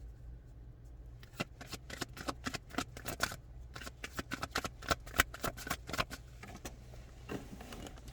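Tarot cards being shuffled by hand: a run of quick, irregular card slaps and flicks, starting about a second in and stopping near seven seconds.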